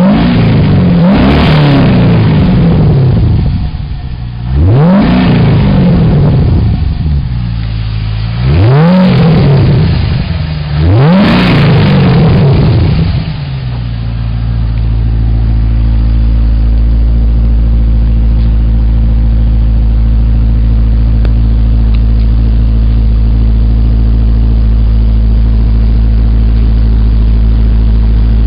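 Holden Commodore SV8's 5.7-litre LS1 V8 blipped four times through an aftermarket free-flowing straight-through cat-back exhaust on standard headers, each rev rising and falling back. It then settles to a steady idle about halfway through, with a low note that is not too loud but has a nice tone.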